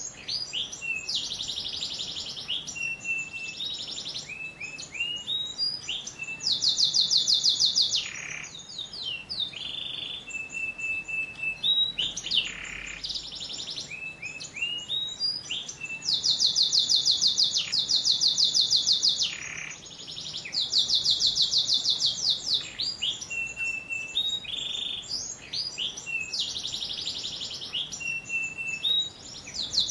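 Domestic canary singing a long, unbroken song of whistled notes and fast rolling trills, the loudest trills of rapidly repeated notes coming back several times.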